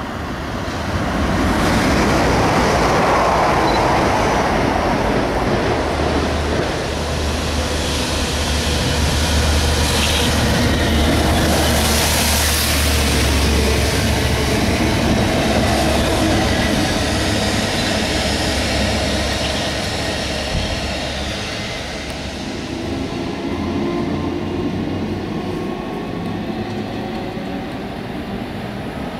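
Diesel-hauled train passing close by at speed. The locomotive's engine gives a low steady drone for several seconds, then the wheels and wagons rumble and clatter past, easing off near the end.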